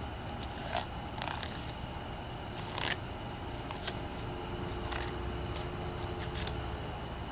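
Fillet knife cutting along a flounder's backbone, crunching and scraping over the bones in a few short strokes, over a steady low rumble.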